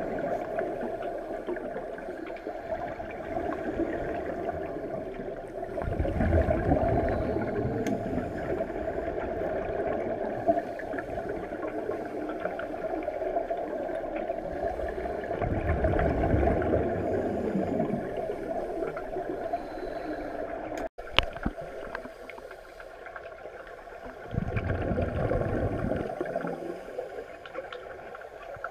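Muffled underwater sound of scuba divers breathing through regulators: a steady hiss, with a deeper gurgling rumble of exhaled bubbles three times, several seconds apart. About two-thirds through, the sound briefly drops out with a click.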